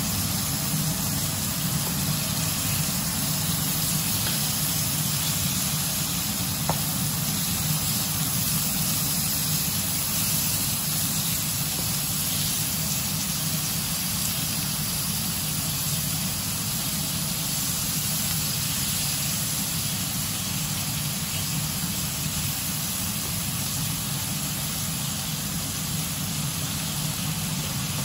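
Pork pieces, onion rings and garlic sizzling steadily in hot oil in a nonstick frying pan, over a low steady hum. A single light tap, likely of the tongs on the pan, comes about seven seconds in.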